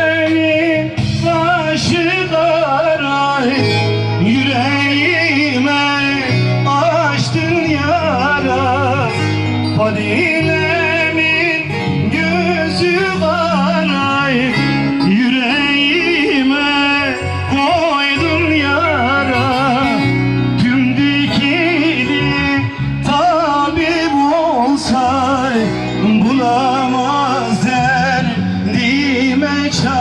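Singing of a Turkish song with a wavering, ornamented voice over plucked-string accompaniment, loud and continuous.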